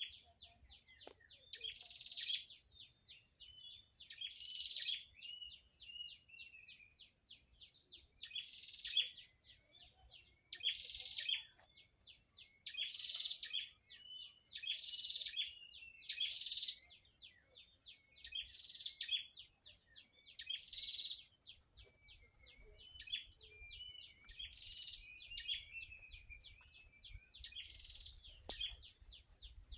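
Birds singing: a song phrase repeats about every one and a half to two seconds over a fast stream of short chirps.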